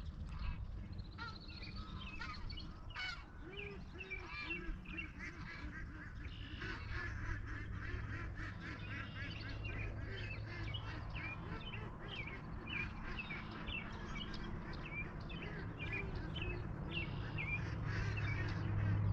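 A flock of farm birds calling: honking waterfowl among many short, high chirps, over a steady low hum.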